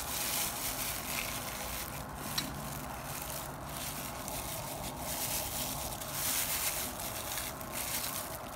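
Thin plastic bag worn over a hand crinkling and rustling in waves as it presses and spreads grated coconut and sugar onto puto bumbong, with a brief click about two and a half seconds in.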